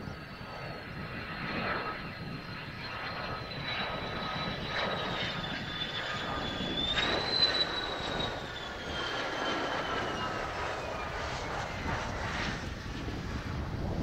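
Mitsubishi F-2 fighter on landing approach, its single F110 turbofan running with a high whine over a rushing jet noise as it passes close. The whine slowly falls in pitch, jumps up briefly about halfway through, then falls away again.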